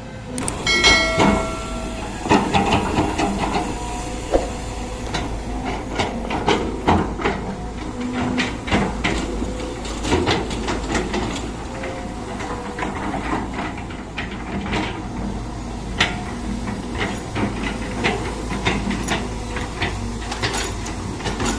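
Excavator digging in wet sand: irregular knocks, clanks and scraping from the bucket over a steady low motor hum, with a brief whine about a second in.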